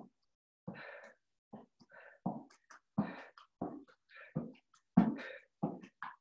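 A person exercising hard: short, rhythmic bursts of heavy breathing, about one or two a second.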